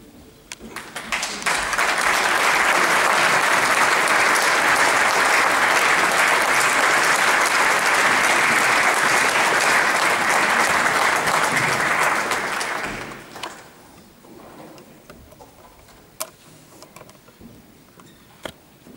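Audience applauding after the end of an orchestral performance. The applause swells about a second and a half in, holds dense and steady for about ten seconds, then dies away to a few scattered claps.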